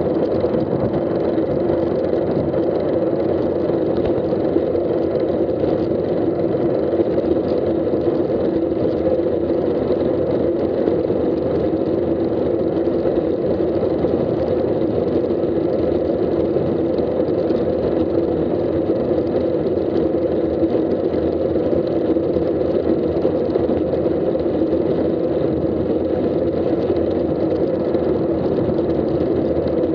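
Steady wind rush and tyre-on-tarmac road noise from a road bike in motion, picked up through a bike-mounted action camera, with a steady low drone underneath.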